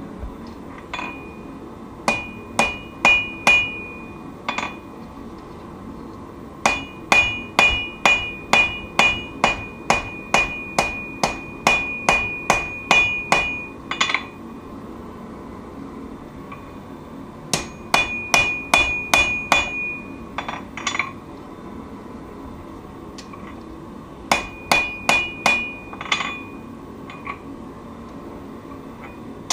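Hand hammer blows on steel over an anvil while forging a knife blade, with each strike ringing out. The blows come in four bouts of about two to three a second, the longest run lasting about seven seconds, with short pauses between bouts.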